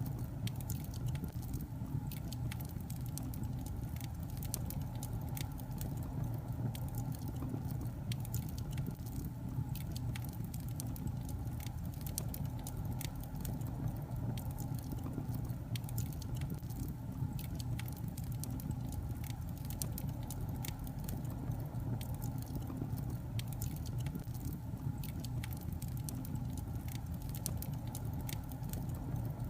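Wood fire burning in a fireplace: a steady low rumble of flames with frequent small, irregular crackles and pops from the burning logs.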